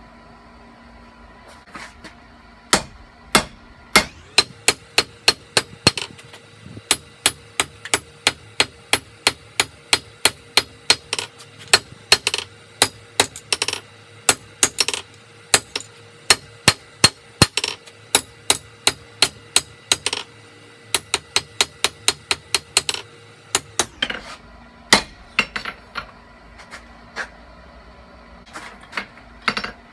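Hand hammer forging hot leaf-spring steel on an anvil. Sharp, ringing blows come in a steady run of about two to three a second. Near the end the run gives way to a few slower, scattered strikes.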